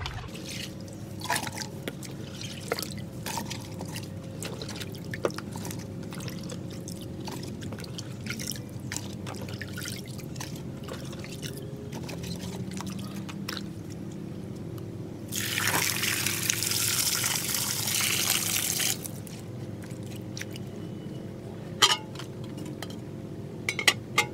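Water splashing and dripping as handfuls of soaked bamboo-shoot slices are lifted out of a basin of salt water and dropped into an aluminium pot, with a louder rush of pouring water for about three seconds past the middle. A couple of sharp clinks near the end as the pot's aluminium lid goes on.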